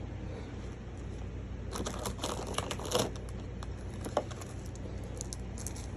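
Packaging being handled and unpacked: a burst of crinkling and rustling about two seconds in, then a single sharp tick and a few lighter rustles, over a steady low hum.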